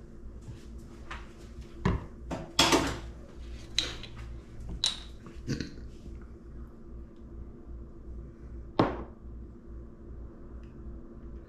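Kitchen clatter while soy sauce is measured out: a handful of sharp clinks and knocks from a bottle, a small measuring cup and a glass mixing bowl, the loudest about two and a half seconds in and again near the end, over a faint steady low hum.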